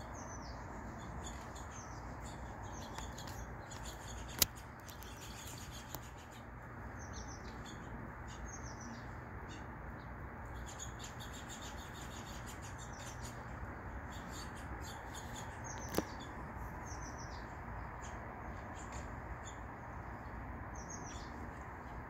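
Small songbirds chirping repeatedly with short, high, falling notes over a steady low background hum. Two sharp clicks stand out, one about four seconds in and one about sixteen seconds in.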